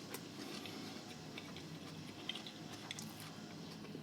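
Quiet eating sounds: soft chewing with a few faint clicks spread through.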